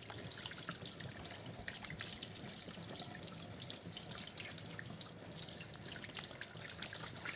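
Water running from a tap over hands being rinsed, splashing and dripping into a sink with many small irregular splashes.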